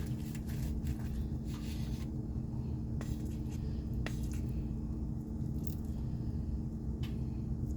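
Biting into and chewing a slice of birria pizza: soft squishy bites and a few small clicks over a steady low hum.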